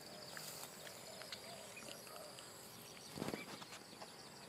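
Faint field ambience: a steady high drone of insects, with a short burst of noise about three seconds in.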